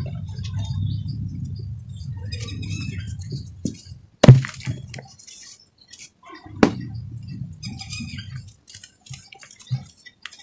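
Dry, powdery red dirt being squeezed, stirred and crumbled by hand: a low muffled crunching press with fine dry crackles. There are two sharp knocks, the loudest a little over four seconds in and another about two seconds later.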